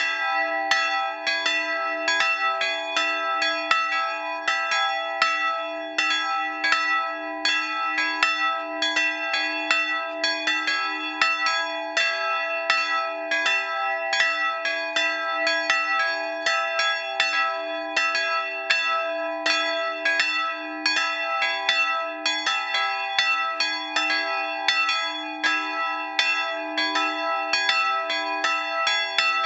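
Two swinging bronze bells cast in 1913 by Schilling & Söhne of Apolda, tuned to e'' and g-sharp'', ringing together in full peal, their clapper strokes coming steadily at about two to three a second and overlapping in a continuous ring.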